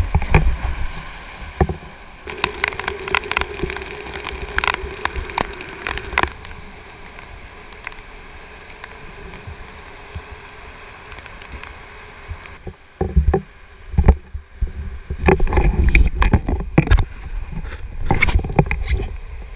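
Whitewater rushing steadily through a rocky rapid, close to the microphone, with scattered sharp knocks and clatters during a kayak run. A little past halfway the rushing falls away and loud thumps and bumps follow, as if from handling near the microphone.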